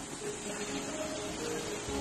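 Soft background music of slow, held notes changing pitch, over a steady hiss of a small stream running over rocks.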